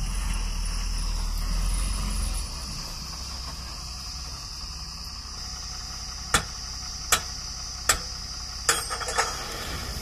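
Tata tipper truck's diesel engine running with a low rumble that drops away about two and a half seconds in. Five short, sharp knocks follow in the last few seconds.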